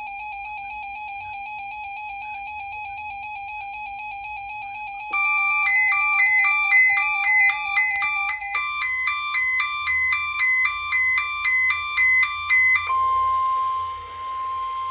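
Several NOAA weather alert radios sounding their alarms together, set off by a SAME weekly test signal. A steady electronic alert tone plays first. About five seconds in, louder beeping alarms join, switching rapidly between two pitches, and the first tone drops out partway through. Near the end the beeping stops and a single steady warning tone plays over radio hiss.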